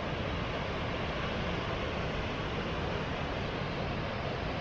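Waterfall pouring into a rocky gorge: a steady, even rush of falling water.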